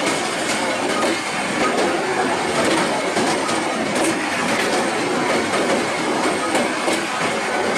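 Bangladesh Railway passenger coaches passing close by at speed: a steady, loud rush of steel wheels on the rails, with faint clicks from the rail joints.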